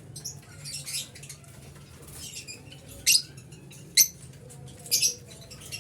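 Lovebirds giving a string of short, shrill, high-pitched chirps and squeaks, the loudest about three, four and five seconds in.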